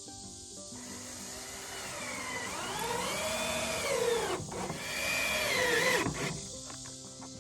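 Sawmill engine running, its pitch climbing and falling back twice, with steady machine noise under it. Background music plays before and after it.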